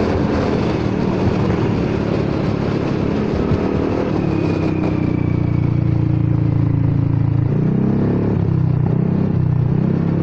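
Honda Forza 300 scooter's single-cylinder engine running through a damaged aftermarket exhaust on the move, with wind rushing past; the engine note holds steady, then rises and falls a few times near the end as the throttle changes. The rider blames a slipped inner baffle in the pipe for the exhaust note going loud and quiet.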